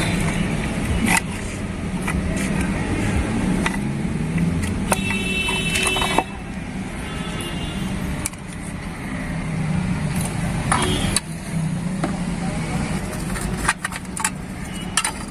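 Scattered metallic clinks and clicks of tools and parts being handled while a scooter's kick-start ratchet and kick shaft are refitted, over a steady low hum. A brief high ringing tone comes about five seconds in.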